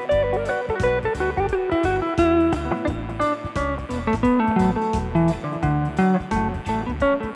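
Instrumental song passage led by guitar, over a steady drum beat and bass line, with no singing.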